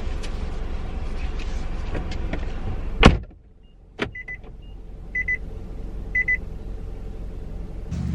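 Steady rumbling noise cut off by a loud thump, like a door shutting, about three seconds in. After it, things are much quieter, with a click and three short double beeps about a second apart.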